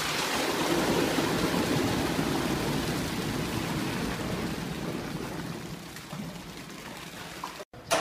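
Grey powdered material pouring from a tipped container into a feed hopper: a rushing hiss that starts suddenly, is loudest about a second in, then slowly tapers off before cutting out near the end.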